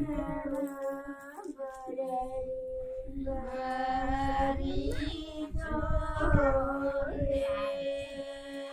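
Several women singing a traditional wedding folk song together in long, drawn-out phrases of held notes, with short breaks between phrases.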